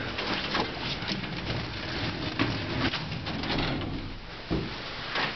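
An old elevator car with a collapsible steel scissor gate, giving a low hum with many small clicks and rattles.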